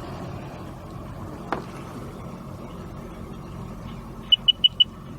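Engine of heavy equipment running steadily at low revs, with a single sharp click about a second and a half in and four quick high-pitched beeps near the end.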